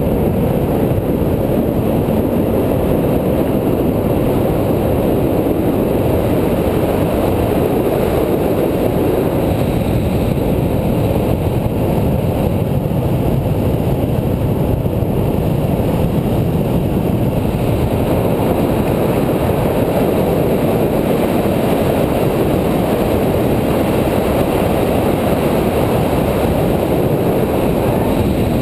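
Steady loud rumble of wind buffeting the GoPro microphone, mixed with the roll of longboard wheels on asphalt during a fast downhill run.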